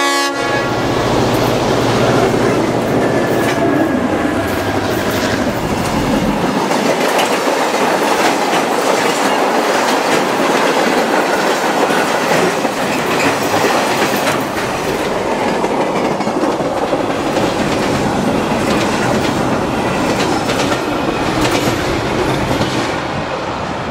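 G class diesel locomotive passing close, its engine drone fading about six seconds in, followed by a long train of container wagons rolling by with the wheels clattering over the rails.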